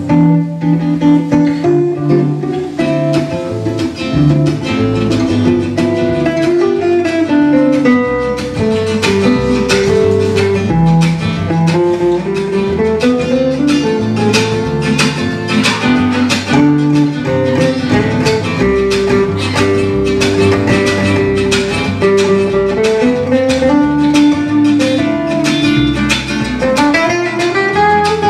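Live acoustic jazz trio of two acoustic guitars and upright double bass playing an instrumental passage: one guitar strumming chords in a steady rhythm, the other picking melodic lines that climb and fall, bass notes underneath.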